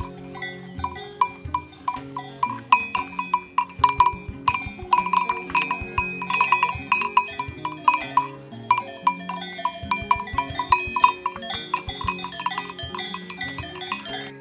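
A bell on a young cow's collar clanking in quick, uneven runs as the animal moves its head and grazes.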